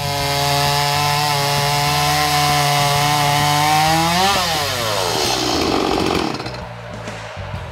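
Stihl chainsaw running at full throttle through a log, its pitch creeping up slightly. About four seconds in the revs drop sharply as the throttle is let off and the engine winds down.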